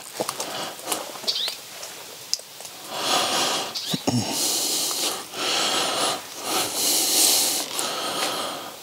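A person breathing heavily close to the microphone: about five long, noisy breaths with short gaps, with a faint whistle in some of them. Scattered clicks come before the breathing, in the first few seconds.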